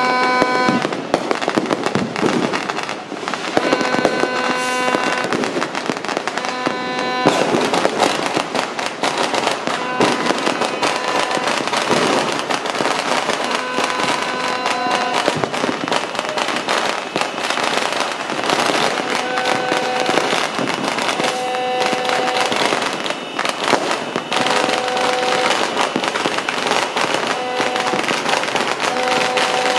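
Many New Year's fireworks and firecrackers going off at once: a dense, unbroken crackle of rapid pops with sharper bangs throughout. A pitched tone sounds over it in short blasts, again and again.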